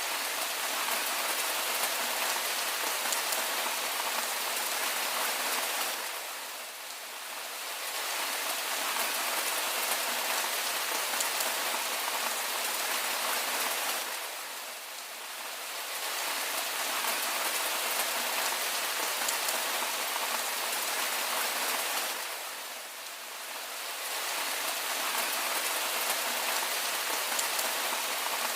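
Steady rain falling on a surface, an even hiss that eases slightly and swells back about every eight seconds.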